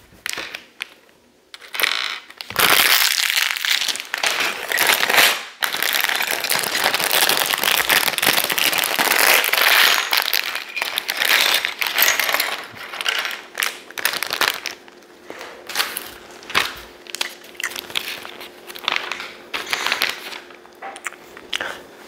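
Thin plastic bags of LEGO pieces being torn open and crinkled, loudly and almost without pause for over ten seconds. After that comes a run of separate small clicks and taps as the plastic bricks are moved about on the wooden table.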